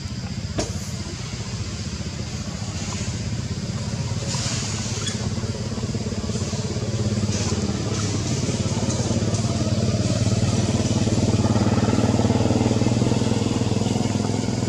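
A small engine running: a steady low hum that slowly grows louder for most of the stretch and eases slightly near the end. A single sharp click about half a second in.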